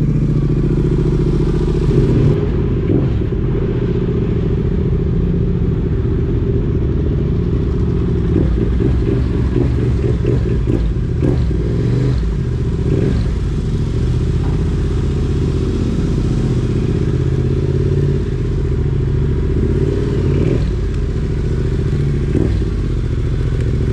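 Yamaha Ténéré 700's parallel-twin engine running under way, its note rising and falling a few times with the throttle, with scattered knocks and rattles throughout.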